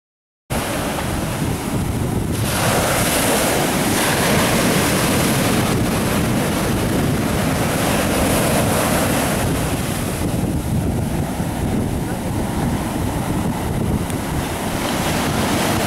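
Wind buffeting the microphone over a steady wash of surf on a sandy shore, starting abruptly about half a second in.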